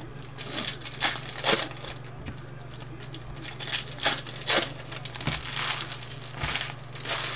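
Foil trading-card pack wrapper being crinkled and torn open by hand, in a run of sharp, crackly bursts. A steady low hum sits underneath.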